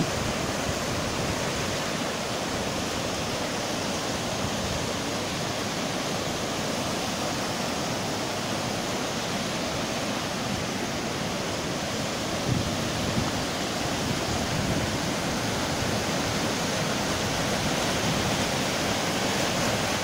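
A fast mountain river rushing over rocks in whitewater rapids, a steady roar of churning water from a river running high. It grows slightly louder in the last few seconds.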